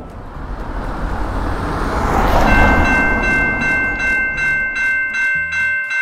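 Railroad crossing warning bell starting to ring as the crossing signals activate, a steady ringing tone that settles into even strokes about two a second. Before it, a broad rushing noise swells for the first two seconds or so.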